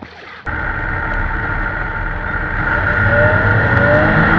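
A loud, steady engine drone that starts abruptly about half a second in.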